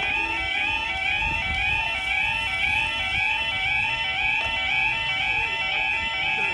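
UK level crossing yodel alarm sounding while the barriers come down, a loud warbling two-tone wail repeating a couple of times a second.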